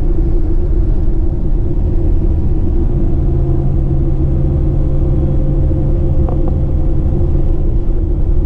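Steady low rumble of a tour coach driving, engine and road noise heard from inside the cabin.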